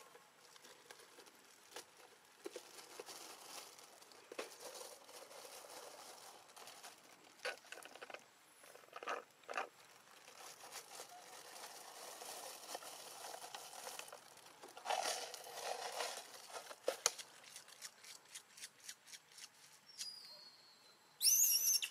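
Faint rustling and scattered small clicks from macaques shifting about on stone, then a short, high-pitched squeal with a rising pitch near the end.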